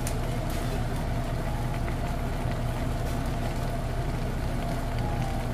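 Steady low kitchen drone as ramen water boils in a stainless steel pot on the hob, with a faint steady hum.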